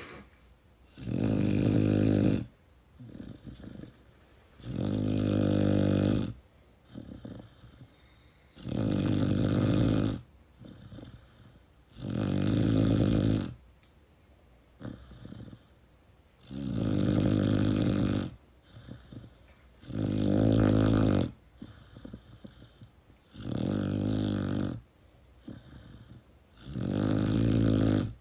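Pit bull puppy snoring in its sleep: eight snores, one every three to four seconds, each about a second and a half long.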